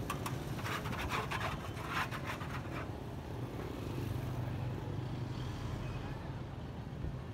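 Street traffic: a motor vehicle engine running steadily, a little louder about four seconds in, with a run of sharp clicks and clatter over the first three seconds.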